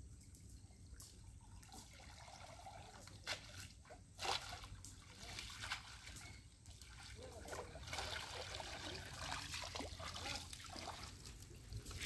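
Faint trickling and dripping of river water running off a wet cast net as it is gathered up, with scattered small splashes and a denser patter of water for a few seconds near the end.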